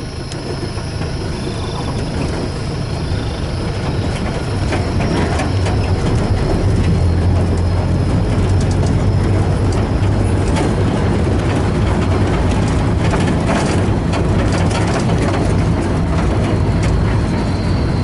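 Vehicle ride noise heard from on board: an engine running under a steady rumble of road noise, with scattered rattles. The rumble builds over the first few seconds, then holds.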